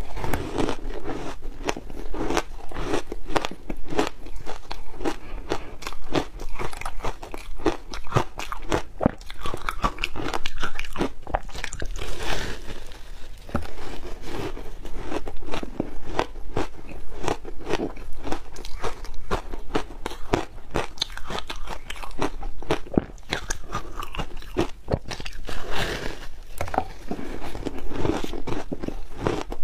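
Close-miked biting and chewing of a block of frozen shaved ice layered with matcha and milk powder, a dense run of sharp, icy crunches with a few short pauses.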